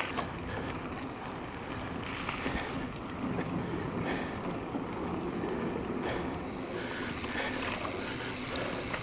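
Steady riding noise from an e-bike under way: wind rushing over the handlebar-mounted camera's microphone, mixed with the tyres rolling over the track.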